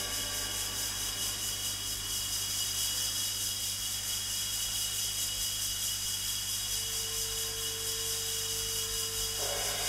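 Steady hiss and low electrical hum of an old recording, with a single held note coming in about seven seconds in and music starting again just before the end.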